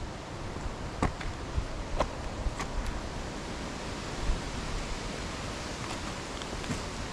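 Mountain stream rushing steadily, an even hiss of flowing water, with a few light clicks about one, two and two and a half seconds in.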